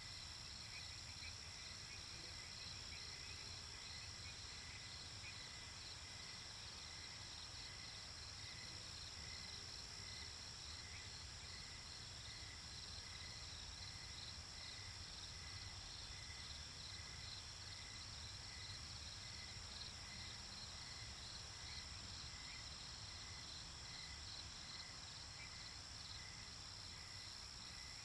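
Crickets and other insects chirping steadily in a night chorus, with high continuous trills and a slower chirp repeating about once a second. Under it runs a low, steady rumble.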